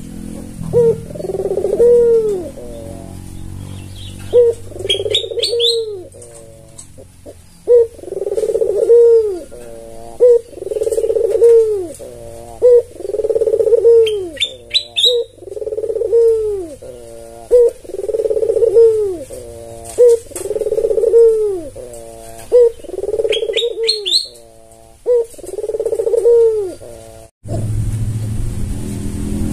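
White albino ringneck dove cooing over and over, one arched coo about every second and a half. A few short high chirps fall between the coos. The cooing cuts off suddenly near the end and gives way to a low steady rumble.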